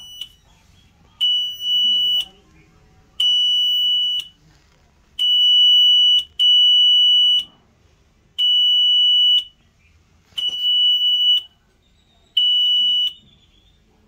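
Built-in alarm buzzer of a Lyngsø Marine UMS 2100 basic alarm panel sounding a loud, high, steady-pitched beep. Each beep lasts about a second, with about a second between most of them, seven times over; two come almost back to back, and the last is cut short.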